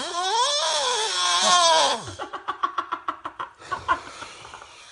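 A person snoring loudly and oddly: a long moaning tone that rises, then falls in pitch over about two seconds, then breaks into a fast rattling run of pulses that fades out.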